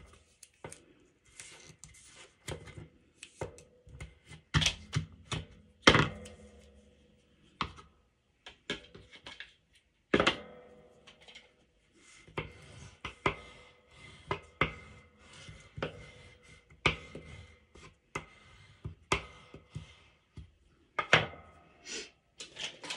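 Strips of tape pulled from a roll and pressed onto a cardstock panel, with scattered taps, rustles and knocks of paper being handled on a tabletop; the sharpest knocks come about six and ten seconds in.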